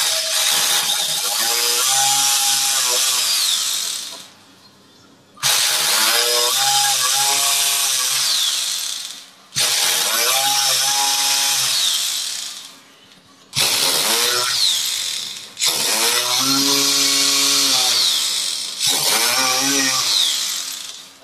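Electric hammer drill with a 6 mm bit boring holes about 1.5 inches deep into a wall for plastic wall plugs, run in about five separate bursts of two to four seconds with short pauses between.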